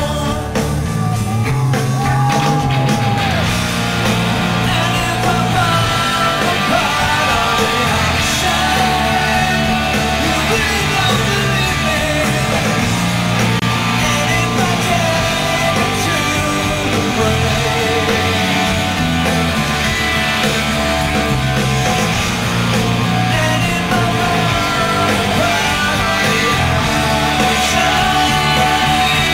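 Live rock band playing loud and steady, with electric guitar played on a double-neck, bass and drums under a male lead vocal, heard from within the audience.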